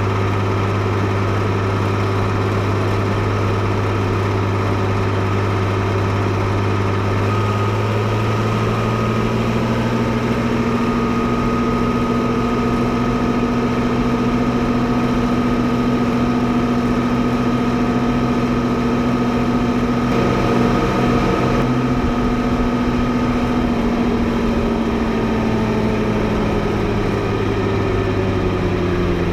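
Fiatagri 115/90 tractor's 5.9-litre six-cylinder FIAT diesel engine running steadily. About a quarter of the way in its speed climbs slowly and holds higher, then eases back down near the end.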